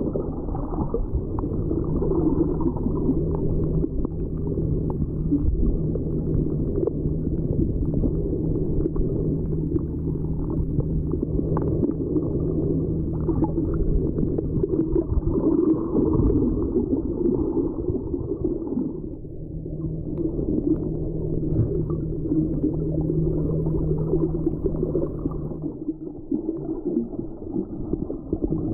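Muffled underwater sound picked up by a submerged camera: a dense low wash of water, with a steady low hum under it that drops out briefly past the middle and stops near the end.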